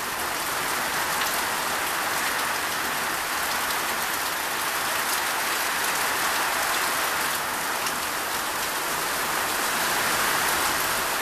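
Heavy downpour of rain, falling steadily as an even hiss.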